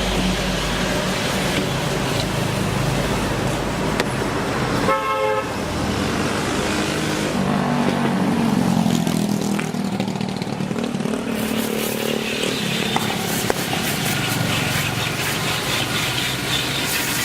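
Road traffic noise, with motor vehicles running by and a short horn toot about five seconds in.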